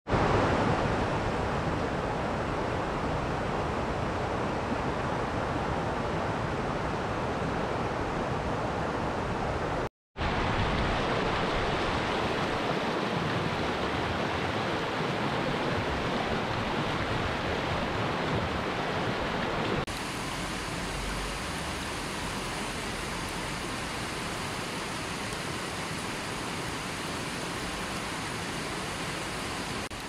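River water rushing over rocks and rapids, a steady rushing noise. It cuts out for a moment at the start and again about a third of the way through, then runs somewhat softer for the last third.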